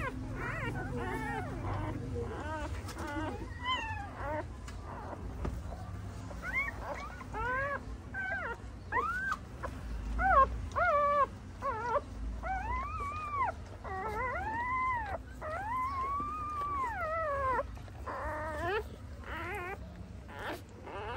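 Newborn puppies crying: a string of high, arching squeals and whines, short at first and some about a second long later on.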